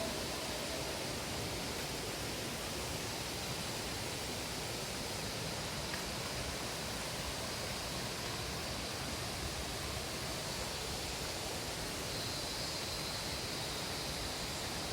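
Waterfall's water rushing down a tiered rock cascade: a steady, even noise with no breaks, and a faint high steady tone that grows slightly stronger near the end.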